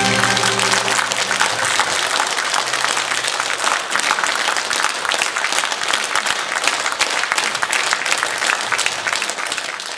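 Audience applauding. The band's final chord dies away in the first second or so as the clapping takes over.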